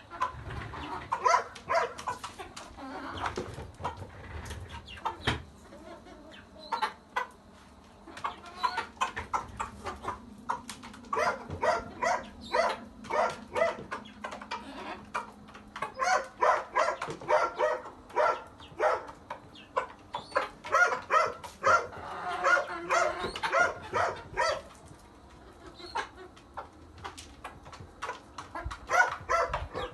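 Animals calling again and again in short quick series, chickens clucking and dogs barking. A low steady hum runs underneath for several seconds from about six seconds in.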